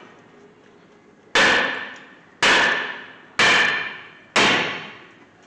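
Four hammer blows about a second apart on a rusted-on brake rotor, each a sharp metal clang that rings and fades. The rotor is seized to the hub by rust and is being knocked free.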